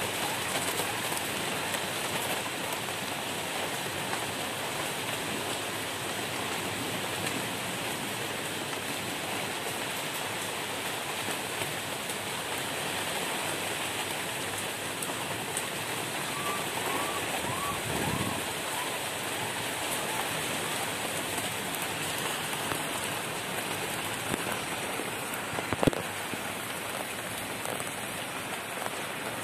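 Steady rain falling, an even continuous hiss, with one sharp tap near the end.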